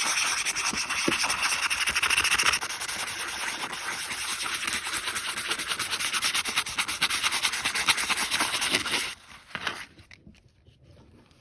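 120-grit sandpaper rubbed in rapid back-and-forth strokes over rusty steel pliers wet with WD-40, scouring off the rust. The sanding stops abruptly about nine seconds in, leaving only a few faint handling sounds.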